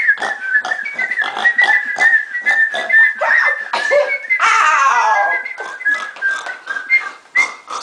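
A person whistling wavering, sustained notes in imitation of someone whistling in their sleep, with a falling swoop about halfway through.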